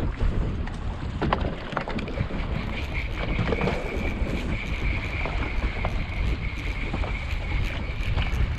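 Wind buffeting the microphone and choppy water against an open fishing boat's hull, with a small spinning reel being cranked to bring in a hooked fish; a steady high whine begins about two seconds in.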